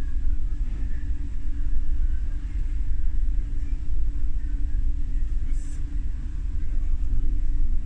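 A ferry's engines running, heard as a steady low rumble with a constant hum. A short hiss about five and a half seconds in.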